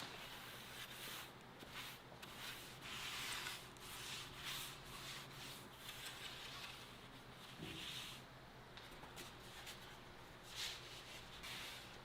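Irregular rubbing strokes on wood, about a second each, as in hand sanding or rubbing down a gayageum part.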